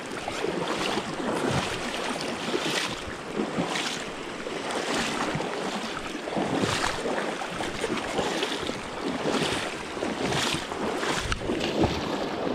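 Fast river current rushing and splashing around wading legs, swelling in irregular surges about every second.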